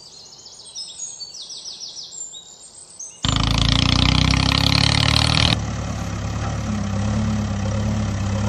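Birds chirping over a quiet background for about three seconds, then a heavy truck engine sound starts abruptly and runs loudly. About halfway through it cuts to a steadier, lower engine running sound.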